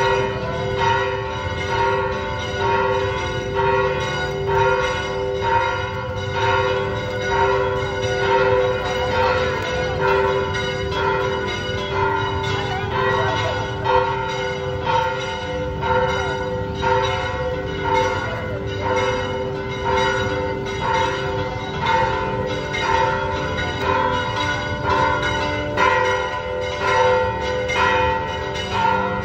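Church bells ringing steadily, struck about once a second, their tones hanging on between strokes.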